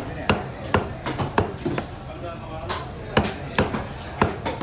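Large curved chopping knife chopping yellowfin tuna on a wooden chopping block: a string of about ten sharp chops, two or three a second, with a short pause near the middle.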